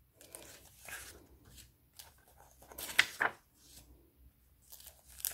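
Sheets of scrapbooking paper being handled and leafed through: a few soft paper rustles and slides, with two sharper rustles close together about halfway through.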